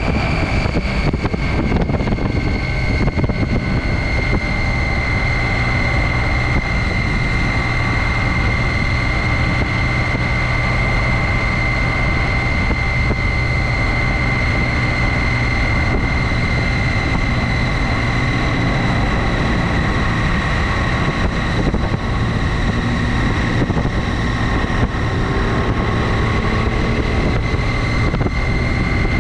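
2017 Triumph Tiger XCx adventure motorcycle's 800 cc three-cylinder engine running at a steady cruise, with wind rushing over the microphone and a steady high whine throughout.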